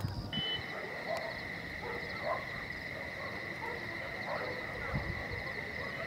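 Evening insect chorus: a steady high-pitched trill that comes in just after the start, a faster pulsing trill above it, and scattered faint chirps.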